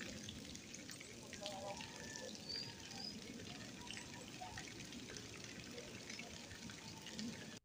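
Faint background ambience with distant, indistinct voices over a steady low hiss.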